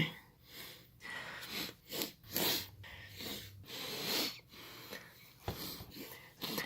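A person sniffling repeatedly through the nose: a string of about a dozen short sniffs, roughly two a second.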